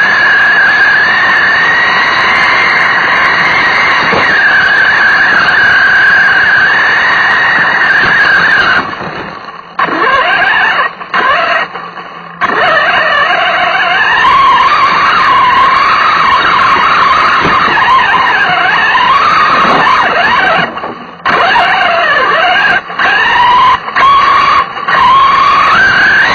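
Small nitro engine of a radio-controlled car revving hard with a high whine that rises and falls with the throttle, cutting back sharply several times, heard through an onboard action camera's microphone.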